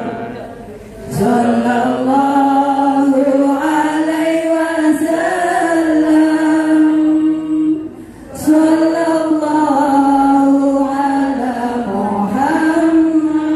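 Islamic devotional chanting (sholawat) sung in long, drawn-out held notes, pausing between phrases about a second in and again around eight seconds in.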